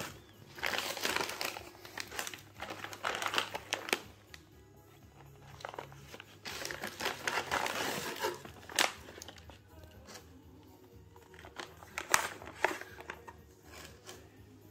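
Paper and plastic packaging crinkling and rustling in bouts as a gift box's shredded paper filler and treat pouches are handled, with a few sharp crackles in the second half.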